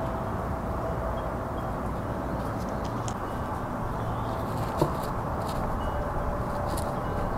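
Small stones and gravel clicking and scraping as rocks are pressed into a bonsai pot's gravel bed by hand, with one sharper click about five seconds in, over a steady low outdoor rumble.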